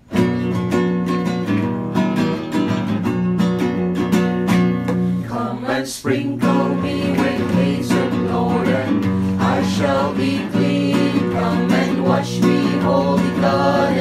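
Music with strummed acoustic guitar over steady bass notes, starting suddenly; a wavering melody line comes in about six seconds in.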